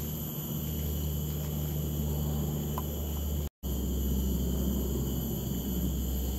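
Steady forest ambience: a low rumble under a thin, steady high drone. The sound drops out completely for a moment about three and a half seconds in, then returns unchanged.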